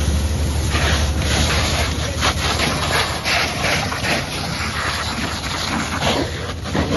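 Fire hose jet spraying water onto a burning car: a loud rushing hiss that swells and fades in surges. A low rumble underneath stops about half a second in.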